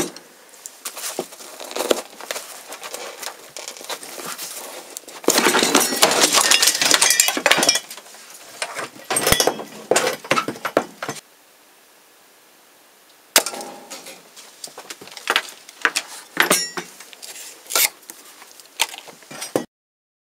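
Hard objects clattering, clinking and knocking as they are shoved about and knocked to the floor. About five seconds in there is a dense, loud clatter lasting a couple of seconds, then a short lull, then more scattered knocks and clinks.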